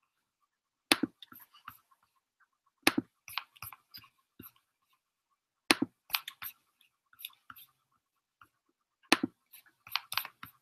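Computer keyboard being typed on in short bursts: four clusters of sharp keystroke clicks, a few seconds apart.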